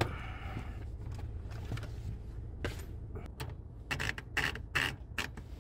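Olympia portable typewriter being handled: its case lid is lifted off, then a scatter of sharp clicks and knocks from the machine's metal parts over a low steady rumble.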